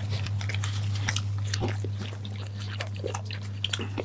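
Close-miked chewing and mouth sounds of eating chicken shawarma, a run of many small irregular clicks and crunches, over a steady low hum.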